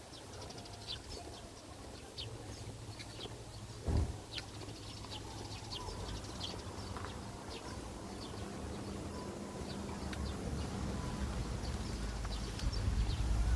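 Small birds chirping in short, scattered calls over a low rumble that grows louder near the end, with one thump about four seconds in.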